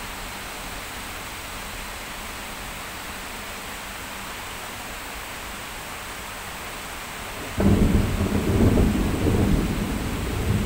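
Steady hiss of heavy rain, then, about three-quarters of the way in, a sudden loud clap of thunder that rolls on as a deep rumble.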